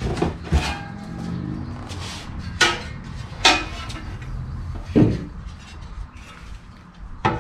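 Aluminium wheel-alignment plate and digital angle gauge being handled and set against a tyre to read camber: about five sharp knocks and clinks spread a second or so apart.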